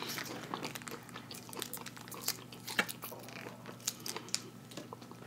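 Faint, scattered crinkles and small ticks of a paper wrapper being handled close to the microphone.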